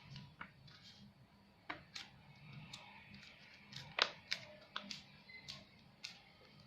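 A sheet of paper being handled and creased: irregular crisp crackles and clicks, the loudest about four seconds in, over faint background music.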